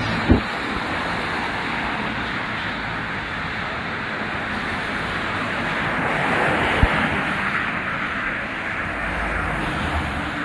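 Cars driving past on a wet street, their tyres hissing on the rain-soaked road; the hiss swells as one car passes about six seconds in. Two dull thumps, one right at the start and one near seven seconds.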